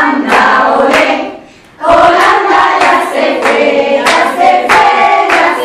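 A group of voices singing a Christmas song together, with hands clapping along. The singing breaks off briefly about a second and a half in.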